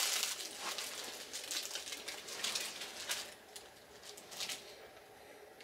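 Plastic snack-cake wrapper crinkling as it is torn open and handled, with dense crackling for about the first three seconds, then only a few scattered crackles.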